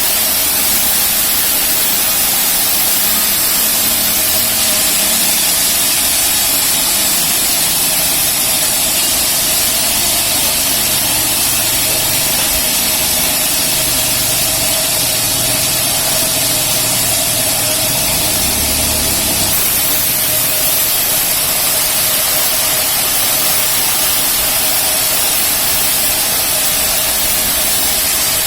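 Rail-mounted band sawmill running: a steady loud machine noise with a constant whine and a low engine rumble underneath.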